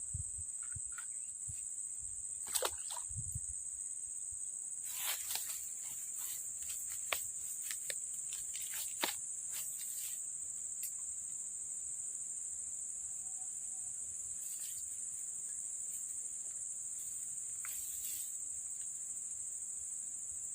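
Steady high-pitched trilling of insects, crickets or similar, running without a break, with scattered short clicks and rustles over it.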